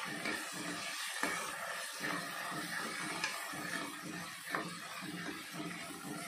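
Metal ladle stirring cowpeas in a kadai, scraping and knocking against the pan a few times over a steady hiss of the wet mix steaming with freshly added water.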